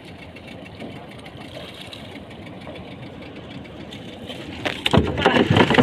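A boat engine idling steadily, then from near the end a loud run of irregular splashing and knocking as a gaffed grouper is hauled out of the water into the boat.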